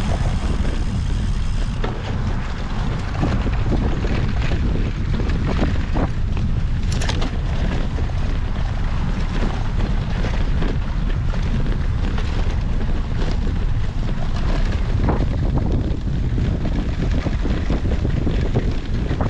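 Heavy wind noise buffeting the microphone of a camera on a moving cyclocross bike, with scattered clicks and rattles from the bike over rough ground.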